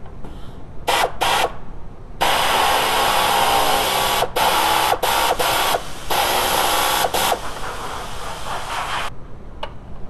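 Pneumatic air gun driving in the radiator fan's mounting-leg screws: two short blips about a second in, then a long run of air-tool whir and hiss, broken by a few brief pauses, that stops near the end.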